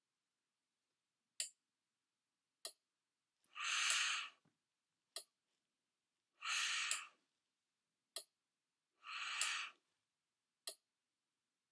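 A person breathing in sharply through a ventilator mask three times, each breath under a second long, to trigger the ventilator's breath cycle. Single sharp clicks come from the stripped-down ventilator prototype in between, five in all, as it cycles.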